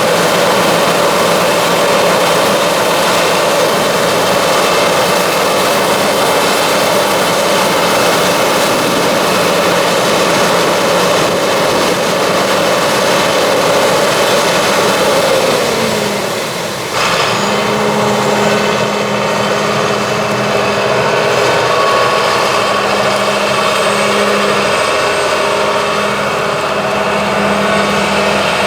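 John Deere 9600 combine running steadily, its engine and machinery making a loud, even drone. A little past halfway the pitch slides down and the sound dips, then switches suddenly to a steadier, lower hum.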